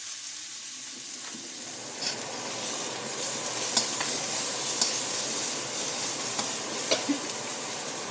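A pounded paste of lemongrass, garlic, dried chilli and black pepper sizzling in hot oil in a wok while a spatula stirs it. A handful of sharp clicks of the spatula against the wok sound over the steady sizzle.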